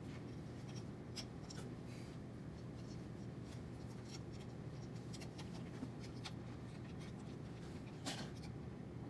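Small clicks, taps and light scraping of metal printer parts and hand tools being handled during hotend reassembly, over a steady low hum, with a somewhat louder click about eight seconds in.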